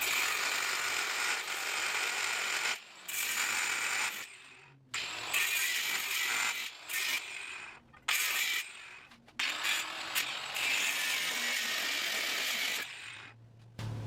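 Angle grinder with a cutting disc cutting through the steel drawbar tube, in several runs of one to three seconds with short stops between them.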